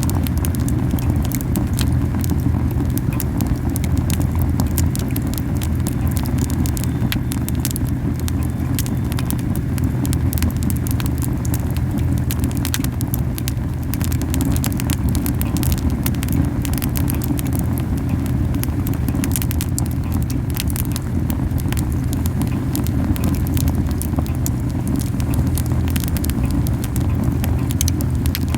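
Camellia wood burning in a fierce campfire: a dense, continuous crackle of small sharp pops over a steady low puffing of the flames, strong because the fire is burning too hot.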